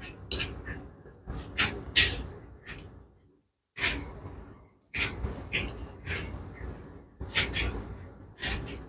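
Steel wrench clinking and scraping against bolts on a motorcycle engine case, in irregular sharp clicks with short pauses, as the bolts are tightened by hand.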